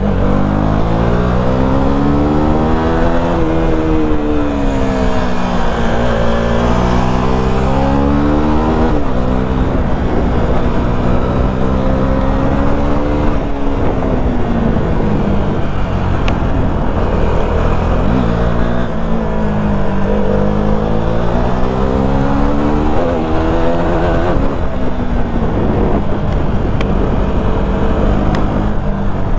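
Motorcycle engine under way, its pitch climbing and falling as the throttle is worked, with sudden drops at gear changes several times, under steady wind noise on the mic.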